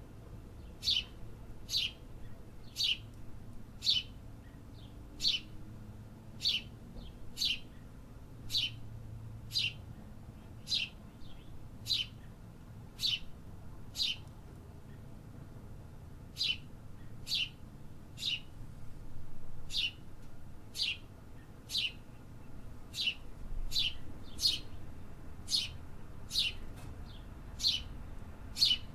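A bird repeating short, sharp chirps, one or two a second, each a quick downward sweep in pitch, with a brief pause about halfway through. A faint low rumble runs beneath.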